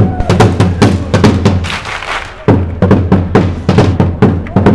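Supporters' drum beaten in a quick, even rhythm amid a marching crowd of football fans. The drumming eases briefly about halfway through, leaving crowd voices, then comes back loud.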